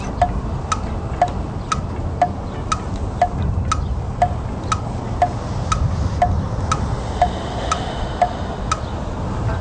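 Clock tick-tock sound effect counting off the seconds, about two ticks a second, alternating between a lower and a higher tick, over a low rumble of wind.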